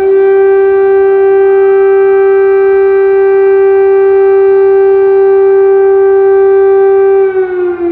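Civil-defence air-raid siren sounding an alert: it holds one steady, very loud wail, then begins to wind down in pitch near the end.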